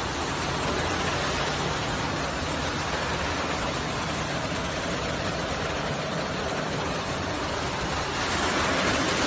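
Wood-door sanding machine running steadily: its motors and spinning cylindrical brush rollers make a continuous rushing noise with a low hum beneath, swelling slightly near the end.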